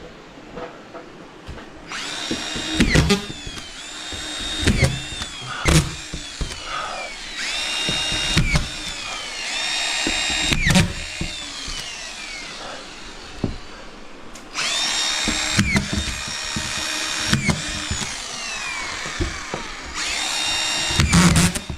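Power drill-driver running in three long bursts, each spinning up to a steady whine and then winding down as the trigger is released. Sharp knocks and clicks fall in the pauses between bursts.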